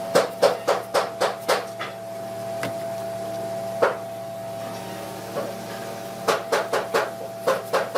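Hammer blows on wood in quick runs of about four a second: one run at the start, a single blow midway, and another run near the end, over a steady hum.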